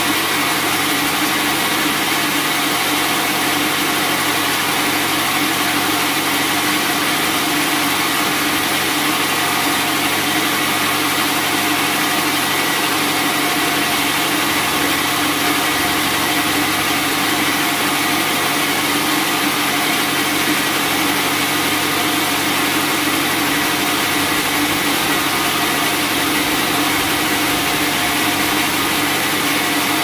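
Bandsaw sawmill running with a steady, unchanging mechanical noise.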